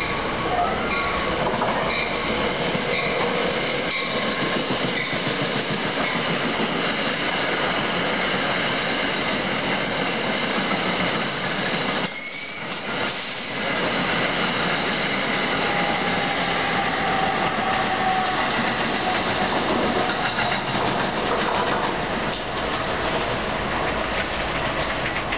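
New Jersey Transit push-pull train of Comet V coaches, with an ALP-46 electric locomotive pushing at the rear, passing close by: a steady rush of wheels running on the rails, briefly quieter about halfway through.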